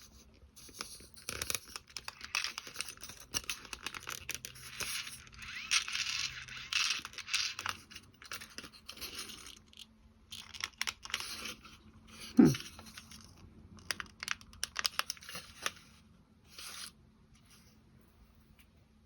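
Small clock parts being handled and fitted: dense scraping and rustling for several seconds, then scattered light clicks and scrapes as pieces are pressed onto the spindle. One short falling squeak about twelve seconds in is the loudest sound.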